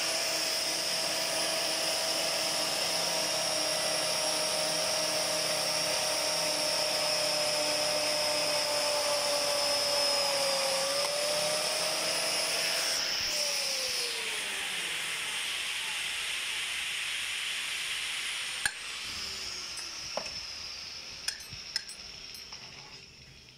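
Electric pipe threading machine's motor running with a steady whine while its die head cuts a thread on a pipe. About 13 seconds in it is switched off and the whine falls in pitch as it winds down, followed by a few light metallic clicks.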